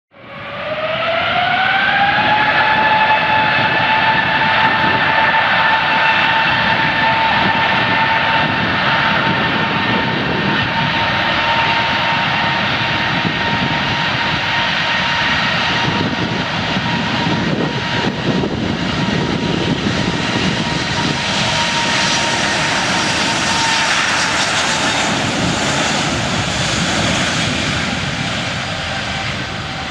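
Airplane engine running with a loud, steady whine that rises in pitch over the first couple of seconds and then holds, over a continuous rushing noise. Later the whine fades out while the rush grows brighter and the sound begins to die away.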